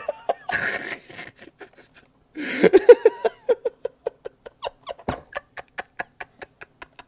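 A man's comic wordless vocal noise: a short breathy hiss, then from about two and a half seconds in a pitched, pulsing sound of about four or five pulses a second that fades into faint clicks.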